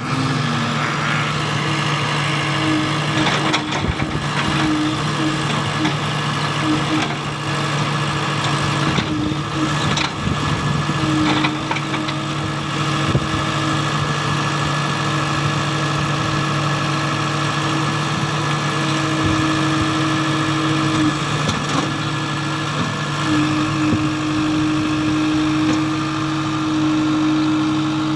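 Heavy diesel engine running steadily, with a few short knocks.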